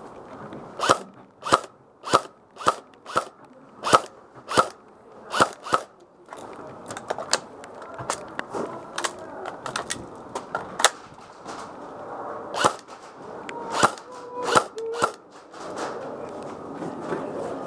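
Airsoft rifle firing single shots as sharp snapping pops: a steady string of about nine in the first six seconds, then more irregular shots and fainter clicks, with a few louder pops near the end.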